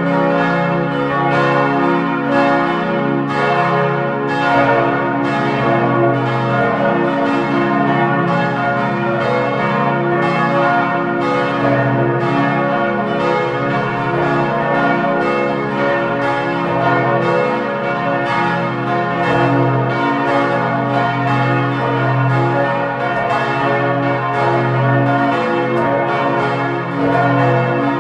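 Church bells pealing: several bells ringing together in a steady, continuous peal of overlapping strokes.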